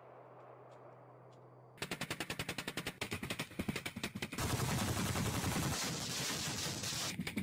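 Rapid automatic fire from a BMPT-72 Terminator 2 tank support vehicle, with rounds striking and shattering a target bus. It begins suddenly about two seconds in as a fast, even stream of shots, roughly ten a second, and grows louder and denser about four seconds in.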